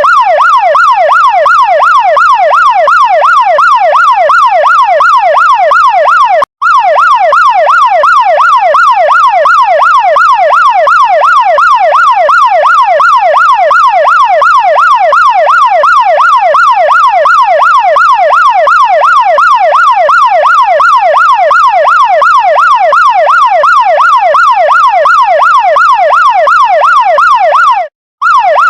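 Chinese fire truck siren sounding a fast electronic yelp, sweeping up and down about four times a second. It cuts out for an instant twice, once about six seconds in and once near the end.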